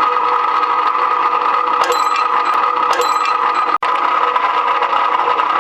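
A rebar cutting machine's electric motor running steadily with a constant hum. Two brief metallic clinks ring out about two and three seconds in, and the sound cuts out for an instant shortly after.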